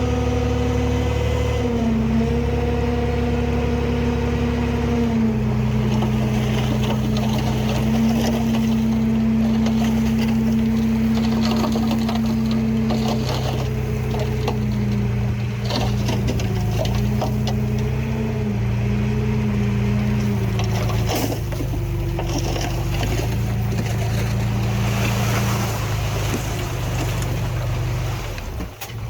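Heavy diesel earthmoving machinery, a bulldozer or dump truck, running steadily. Its engine note steps up and down a few times as the load changes, with scattered clanks and knocks in the middle, and the sound cuts off near the end.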